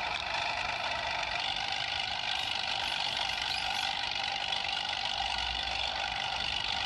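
A steady, even engine-like running hum with a faint pitched whine, holding one pitch with no revving.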